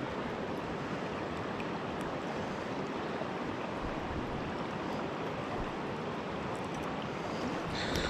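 River water rushing over rocks: a steady, even wash of flowing water.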